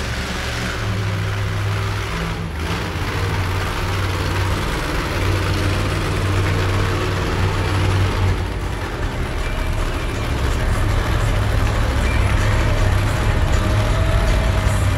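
Monster truck engine running with a deep, steady rumble, growing a little louder toward the end.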